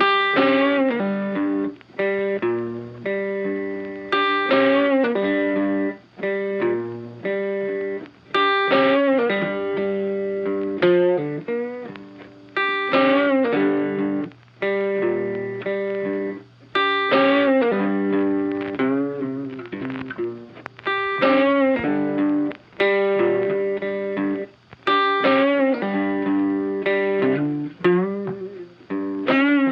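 Funky background music led by an electric guitar with effects, playing a repeated riff with bent notes.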